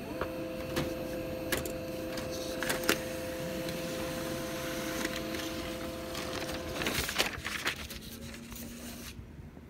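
HP Laser MFP laser printer printing a page: its motors run with a steady hum and a few clicks, stopping about seven seconds in. This is followed by a short rustle of paper as the printed sheet is handled.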